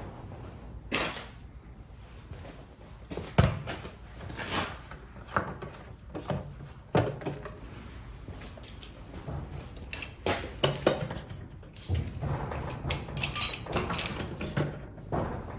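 Irregular knocks, clunks and rattles of objects being handled and set down, the sharpest knock about three and a half seconds in and a busier run of rattles near the end.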